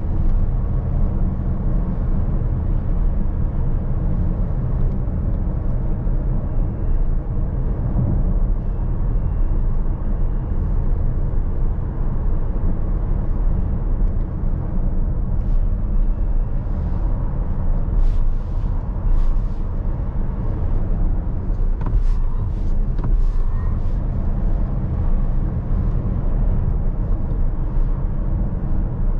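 A 2023 Tesla Model S Long Range, a dual-motor electric car, driving at a steady pace. With no engine note, what is heard is the even, low rumble of tyres on the road.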